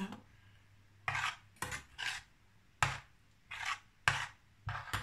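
Metal spoon stirring in a small stainless-steel saucepan, scraping against the pan in seven short strokes spaced about half a second to a second apart.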